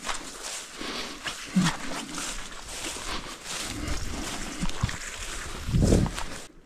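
Footsteps and rustling through forest undergrowth of ferns and shrubs, with a low rumble building to the loudest point about six seconds in, then cutting off suddenly.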